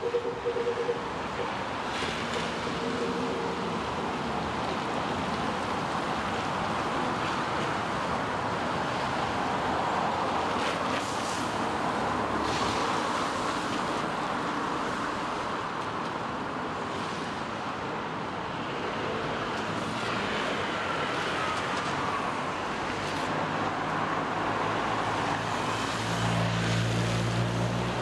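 Road traffic on rain-wet streets, tyres hissing on the wet road, with rain falling, as a steady wash of noise. A low engine hum builds near the end.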